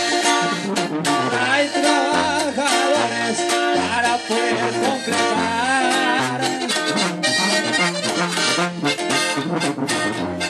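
Live norteño-style band playing the instrumental break of a corrido: accordion carrying a wavering melody over strummed acoustic guitar and a stepping tuba bass line.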